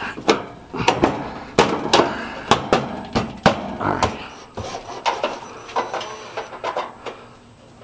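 A series of sharp, irregular knocks, about one or two a second, thinning out near the end.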